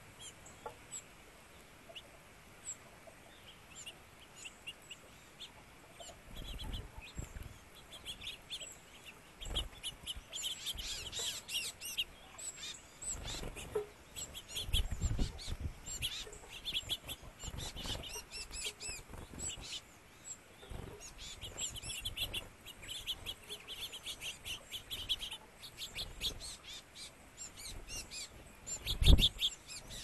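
Small songbirds chirping, with many short, rapid high chirps that grow busier about a third of the way in. A few low thumps are mixed in, the loudest near the end.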